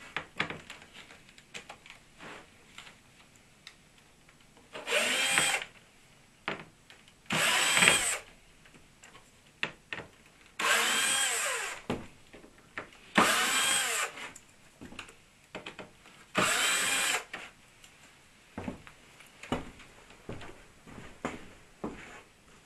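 Cordless drill-driver backing screws out of the back of a 600 mm LED ceiling panel: five short bursts of the motor, each winding up and back down, with small clicks of handling between them.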